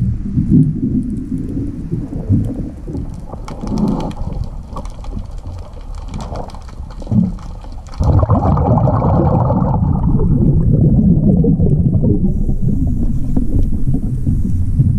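Muffled underwater rumble and gurgling of water and air bubbles around a diver's camera, with fine crackling clicks a few seconds in. The rumble gets suddenly louder about eight seconds in and stays steady after that.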